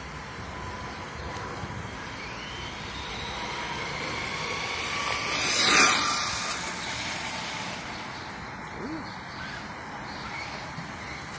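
Traxxas Stampede radio-controlled monster truck driving on a paved path, its motor whining steadily. It grows louder as the truck comes close, peaks about six seconds in as it passes by, then fades.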